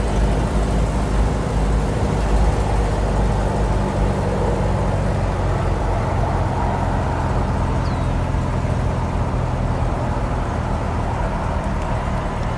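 Steady engine and tyre noise of a car driving, heard from inside its cabin, easing off slightly near the end.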